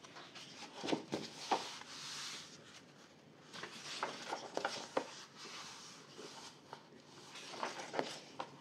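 Pages of a paperback coloring book being turned and pressed flat by hand: soft paper rustles with a few light taps, in several short bouts.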